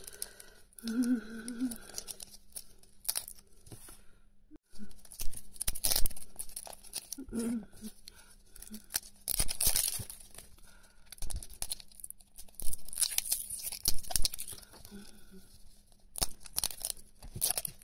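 Plastic shrink wrap being peeled and torn off a plastic capsule ball, crinkling in irregular bursts with short pauses.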